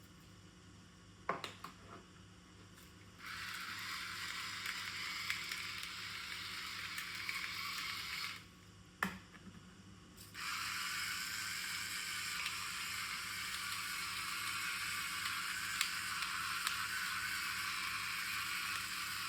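Food sizzling in a frying pan, a steady hiss that starts a few seconds in after a sharp click. It breaks off briefly just past the middle, where a single knock sounds, then resumes steadily.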